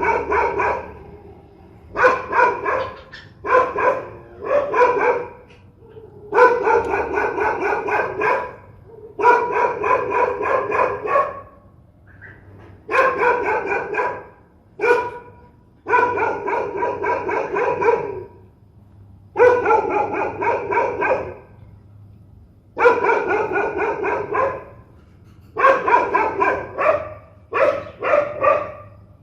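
Dog barking fiercely in repeated volleys of rapid barks, each run lasting one to two seconds with short pauses between them; the runs come closer together near the end.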